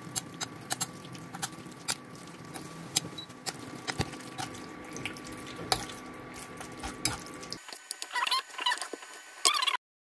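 Metal spoon clinking and scraping against a ceramic plate while stirring sliced pork in a wet soy-sauce and cornstarch marinade, with the coated meat squelching. The clinks come irregularly, and the sound cuts off suddenly just before the end.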